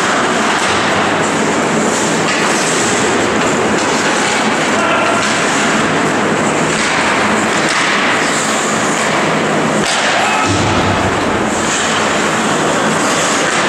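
Ice hockey game sound on an indoor rink: a loud, steady rushing noise, with hissy scrapes of skates on the ice coming and going.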